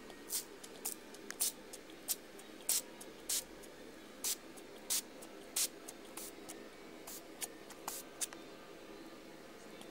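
A small spray bottle of shed-aid liquid being pumped in a dozen or so quick, hissing squirts, roughly one every half second to second, onto a green iguana's legs and tail to loosen retained shed skin. The squirts stop after about eight seconds.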